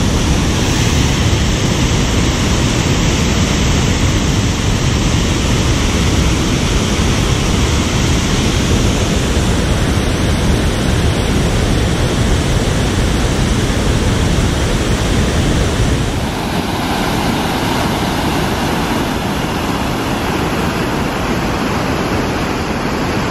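Water pouring over a low-head dam spillway: a loud, steady rush of falling water. About sixteen seconds in it turns a little quieter and thinner in the low end.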